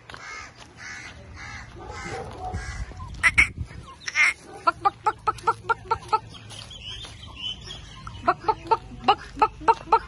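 Domestic chickens calling: a couple of louder squawks, then two runs of short repeated calls, about three to four a second, one in the middle and one near the end.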